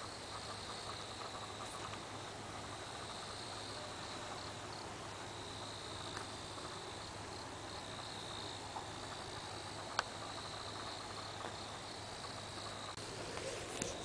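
Crickets trilling in a steady high chorus on an autumn night, swelling and fading slightly, over a low steady hum, with a single sharp click about ten seconds in.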